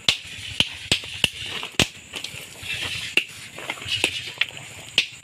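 Small hand hammers striking chunks of gold-bearing ore rock laid on a flat stone anvil, breaking them up. There are about nine sharp, uneven clacks.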